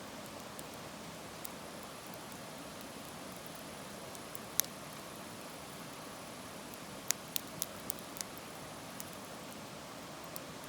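Wood fire burning in a fire pit: a steady hiss with scattered sharp crackles, one loud pop about halfway through and a quick run of about five pops shortly after.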